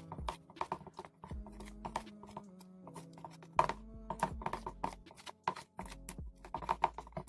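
Slime mixture of PVA glue and shaving foam being stirred in a plate, the stirrer clicking and tapping against the plate several times a second. Background music with held notes plays underneath.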